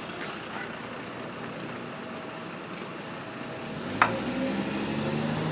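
City street traffic noise, with a sharp click about four seconds in, after which a vehicle engine is heard rising in pitch as it accelerates away.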